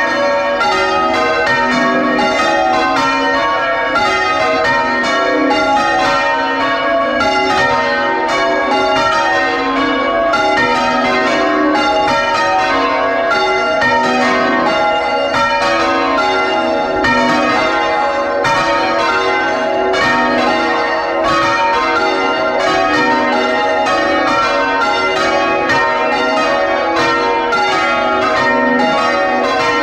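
A ring of six church bells, tenor 9 cwt in A♭, rung full circle in change ringing and heard close up in the bell chamber. The strikes come in a loud, steady, even stream, several a second, with their tones ringing over one another.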